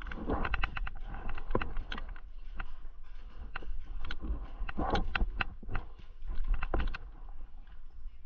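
Irregular clicks and knocks, a few a second and bunched in short runs, over a steady low rumble.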